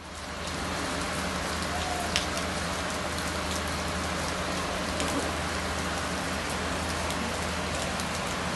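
Heavy rain falling on a wet street: a steady hiss with scattered ticks of drops, and a steady low hum underneath. It fades in at the start.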